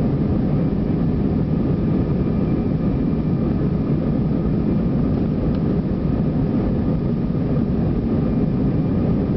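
Airbus A319 on its take-off roll, heard from a cabin seat over the wing: a loud, steady rumble from the jet engines at take-off power, with a faint steady whine above it.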